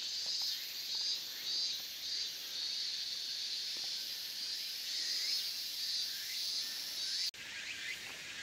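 Chorus of late-summer insects: a shrill, high buzz pulsing about twice a second. After a cut near the end it changes to a busier, chirping texture.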